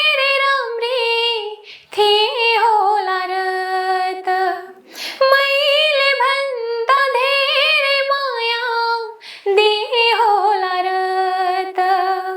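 A woman singing a Nepali folk tune (bhaka) unaccompanied, in long held, ornamented notes with short pauses between phrases.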